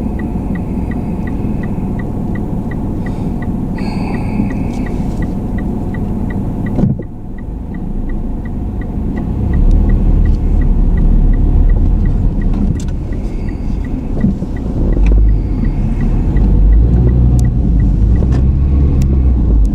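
Car driving on the road: a steady low rumble of engine and road noise, with a faint, even ticking of two to three ticks a second. The rumble grows heavier after a brief dip about a third of the way in.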